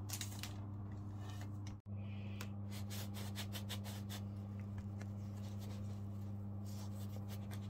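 Light clicks and scrapes as a plastic fluted scone cutter is pressed and twisted through dough on a wooden board, over a steady low hum. The sound cuts out for an instant just before two seconds in.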